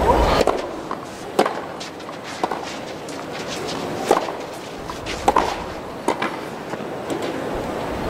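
Tennis rally on a clay court: sharp pops of racket strings hitting the ball, roughly every one to one and a half seconds, over a steady background hiss.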